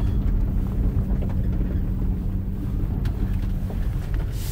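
A car being driven: steady low rumble of the engine and tyres on the road, with a steady hum.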